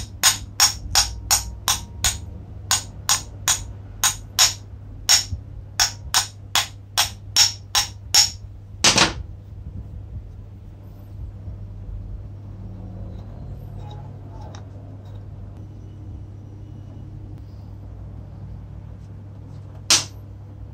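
Small metal taps, about twenty at two to three a second, driving a little retaining pin into the button cap on the aluminium housing of a vintage air impact screwdriver, ending in one heavier knock about nine seconds in. One more sharp tap comes near the end.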